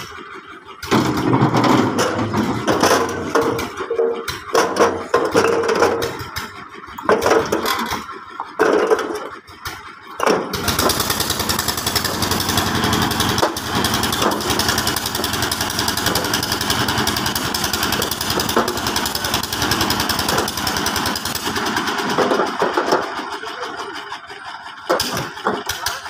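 Motor of a construction material hoist raising its bucket up a lattice tower. After about ten seconds of uneven, stop-start noise, it runs steadily with a fast, rattling pulse, then dies away a few seconds before the end.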